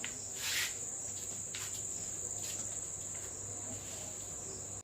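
Steady, high-pitched chirring of insects, most likely crickets, with a faint low hum underneath and a brief rustle about half a second in.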